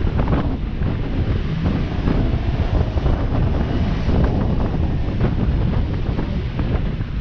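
Heavy logging equipment running, a loud steady low rumble with scattered knocks and rattles, with wind buffeting the microphone.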